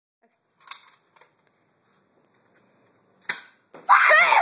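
Plastic clicks from a toy blaster being handled, with a sharp snap about three seconds in, then a loud, high-pitched wavering cry near the end.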